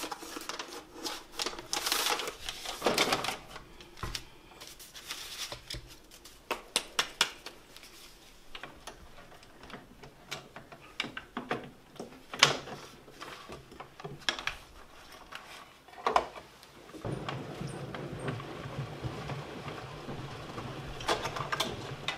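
Clicks, taps and knocks of a paper pianola roll and its cardboard box being handled and the roll being fitted into the player piano's spool box. About seventeen seconds in, a steady low mechanical running noise starts as the pianola is set going, with a few more clicks near the end.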